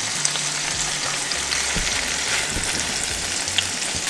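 Pieces of seasoned cobia sizzling in hot oil in a nonstick frying pan: a steady sizzle with a few faint clicks as the fish pieces are laid in.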